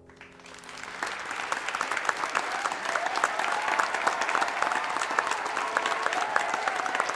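Crowd applauding, swelling over about the first second and then steady, with some voices calling out over it.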